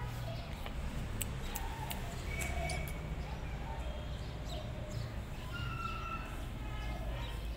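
Several short, high animal calls, a few sharp clicks between about one and two seconds in, and a steady low outdoor rumble throughout.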